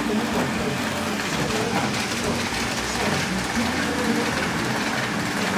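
HO-scale model trains, a Liliput WESTbahn KISS double-deck set and a Roco ÖBB Railjet, running past on the layout: steady rolling noise of the metal wheels on the track.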